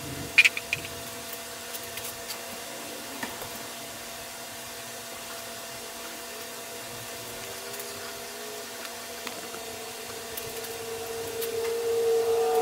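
Sharp clicks and ticks of plastic pipe and fittings being handled and pushed together, loudest about half a second in, over a steady hum. Near the end a tone swells louder.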